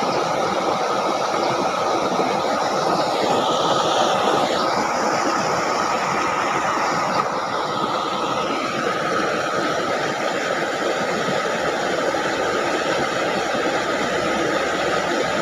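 Steady rushing of flowing water in a shallow, muddy ditch.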